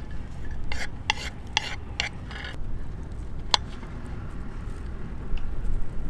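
Opinel knife slicing garlic thinly on a board: a quick run of cuts over the first two and a half seconds, then a single sharp click about three and a half seconds in.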